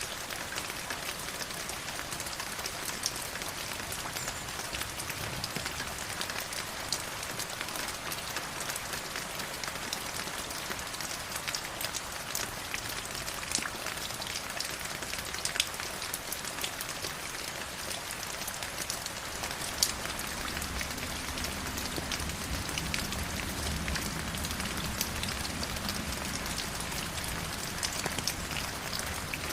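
Stream water flowing steadily: a continuous splashing hiss full of small drips and ticks. A low rumble joins it about two-thirds of the way through.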